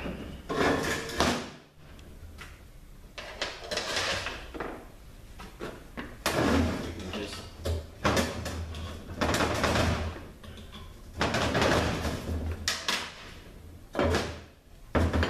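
Irregular clunks, clatters and scrapes of heavy metal automatic-transmission parts being handled and pulled apart on a workbench.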